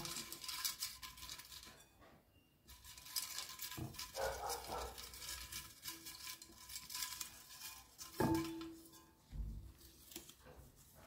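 Small rolled paper slips rustling and shifting in a glass fishbowl as a hand rummages among them, with light clicks and knocks against the glass.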